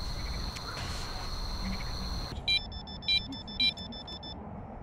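An electronic carp bite alarm on a rod pod beeping in short repeated tones, about four beeps roughly half a second apart. This signals a bite, with a fish pulling line off the reel against a slipping drag. Before the beeps there is a steady high-pitched tone.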